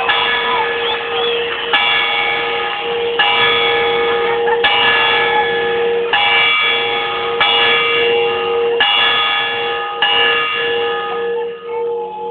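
A large bell rung in a steady peal, struck about every second and a half, each stroke ringing on into the next. The last stroke comes about ten seconds in and its ringing fades.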